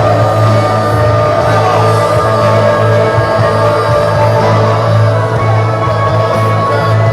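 Worship music with held chords over a steady low bass note, with a crowd's voices singing and calling out.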